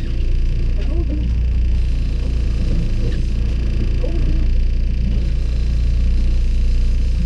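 Boat's outboard motor running steadily at low speed, a constant low drone.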